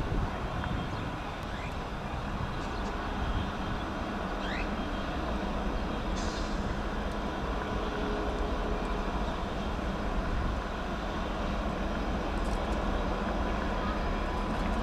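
Diesel-electric locomotives of the 82 and 81 classes hauling an empty coal train, approaching slowly with a steady low engine rumble that grows slightly louder.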